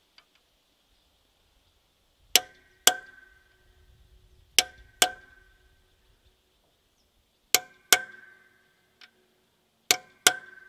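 Hammer driving a metal punch held against the flywheel housing of a Volvo BM 430T tractor engine: eight sharp metallic blows in four pairs, each blow ringing briefly.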